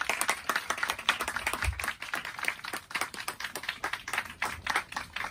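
Audience applause: many hands clapping in a dense, irregular patter, thinning a little toward the end.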